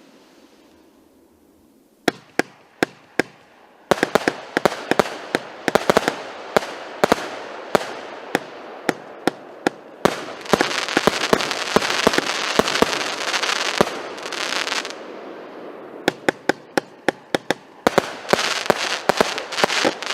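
Orion "Rumba" OTS 5050 consumer firework battery firing: after a short quiet start, sharp bangs of bursting shells in quickening succession, running together into a dense continuous crackling rattle for several seconds in the middle, then another fast run of bangs near the end.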